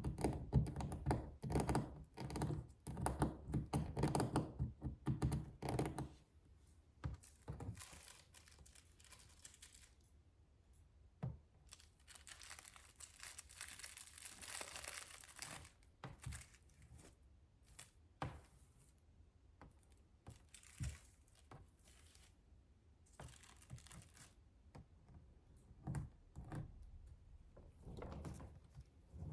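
Suitcase being handled: a busy run of tapping and clicking on its shell and fittings, then single clicks and knocks. Its zipper is pulled for about three seconds around the middle, and more scattered taps follow.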